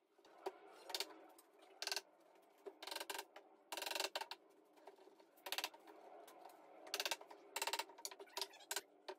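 Scattered knocks, clicks and short scrapes of solid cherry boards being handled and shifted into line on a table top, about a dozen sharp strokes.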